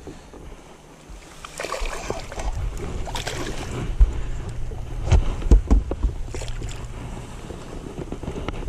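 Wind rumbling on the microphone, with a run of knocks, clatter and splashes as a hooked bass is played at the side of a bass boat. The sharpest knocks come about four seconds in and several more between five and six seconds.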